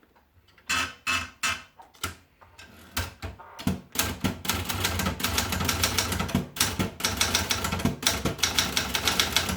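Adler Gabriele 35 manual portable typewriter being typed on. A few separate keystrokes come first, then fast, continuous typing from about four seconds in.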